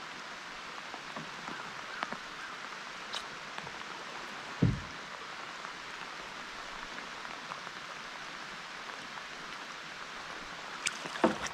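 Steady hiss of water, with one dull low thump about halfway through and a few sharp clicks near the end.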